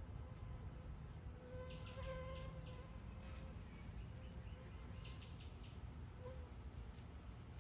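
Backyard ambience: small birds chirping in two quick bursts of rapid high notes, over a faint steady hum and low background rumble.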